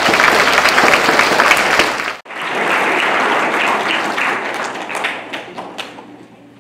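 Audience applause, many hands clapping together. It cuts out for an instant about two seconds in, then carries on and dies away near the end.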